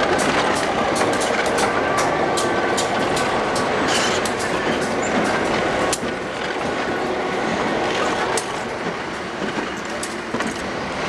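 EMD GP10 diesel-electric locomotives passing close at low speed: the engines run while the wheels click over the rail joints a few times a second. The sound grows quieter after about six seconds as the last unit goes by.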